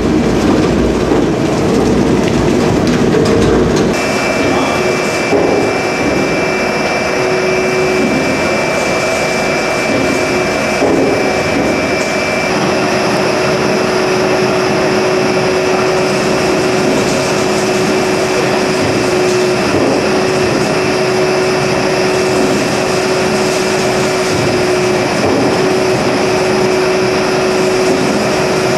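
Wagner 70 kW waste-processing machine running steadily. About four seconds in, its deep rumble drops away and a steady whine comes in and holds.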